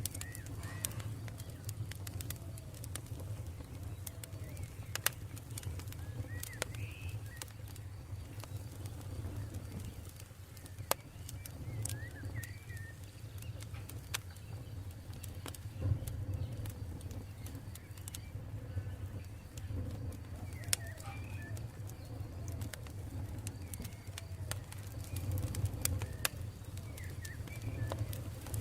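Campfire burning with a low steady rumble and occasional sharp crackles and pops, while birds call now and then in the background.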